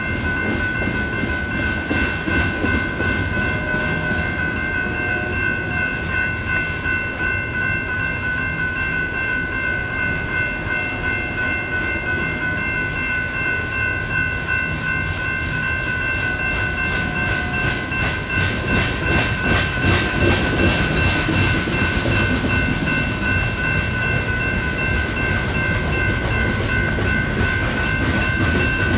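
Coal train freight cars rolling past with rumbling and wheel clatter, growing louder about two-thirds of the way in, while the crossing's electronic bells (an NEG E-Bell and a GS Type 3 E-Bell) ring steadily the whole time.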